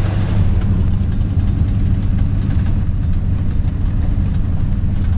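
Pickup truck driving on a gravel road, heard from inside the cab: a steady low engine drone with tyre and road noise and faint scattered ticks of gravel.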